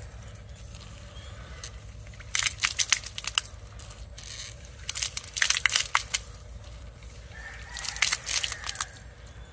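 Homemade PVC deep-well hand pump being worked by hand: three bursts of rapid crackling and sputtering, a few seconds apart, one with each stroke of the plunger as it draws up water.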